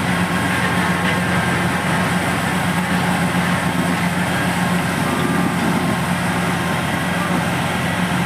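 Heavy diesel road-construction machinery running steadily, a constant engine drone with faint steady whines above it and no change in pace.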